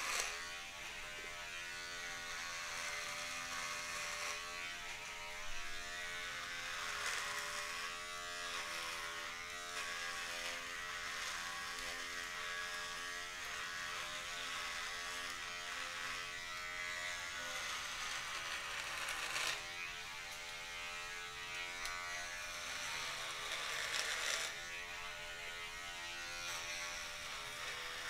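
Electric beard trimmer buzzing as it cuts through beard hair on the face and neck. The pitch of the buzz wavers and dips now and then as the head is pressed against the skin.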